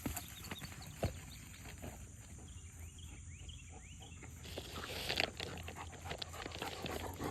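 German shepherd panting and moving about, faint at first and louder in the second half.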